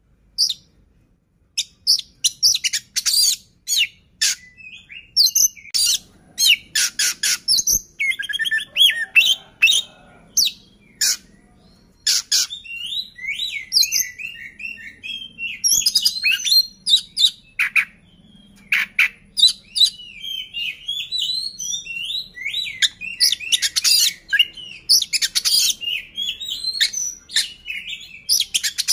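Oriental magpie-robin (kacer) singing a long, varied song of sharp chirps, whistled notes and fast trills, broken by short pauses.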